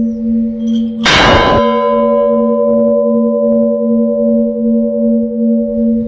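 Large church bell struck once by its hand-pulled clapper about a second in: a bright clang that rings on in a long, wavering hum. The hum of an earlier stroke is already sounding before it.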